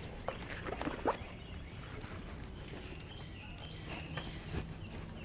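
Light knocks and handling noise from fishing rods being handled and set down on a wooden dock, sharpest in the first second or so. Faint high, stepped whistling notes come in the middle.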